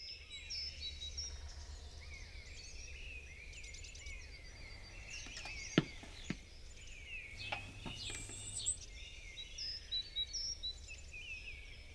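Outdoor ambience of several small birds chirping and singing, over a steady low rumble. A few sharp taps come about six and eight seconds in.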